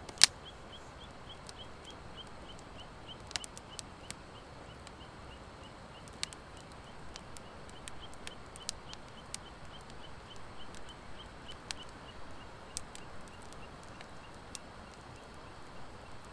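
Wood fire of driftwood and dry hardwood logs crackling, with scattered sharp pops, the loudest just after the start. A faint high chirp repeats steadily about four times a second behind it.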